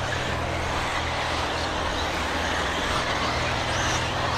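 Electric RC buggies running on a race track: a steady mix of motor and drivetrain noise, with a brief rising whine near the end.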